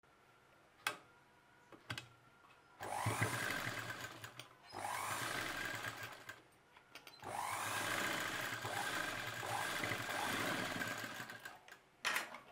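Sewing machine stitching piping down along a neckline, running in three steady bursts with short pauses between, after a few light clicks.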